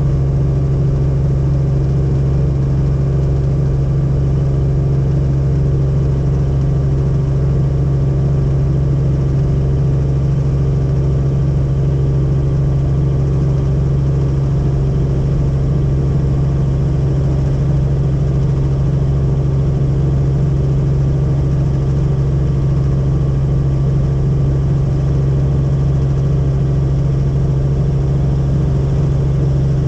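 Helicopter in steady flight heard from inside the cabin: a loud, unbroken drone of engine and rotor with a strong low hum.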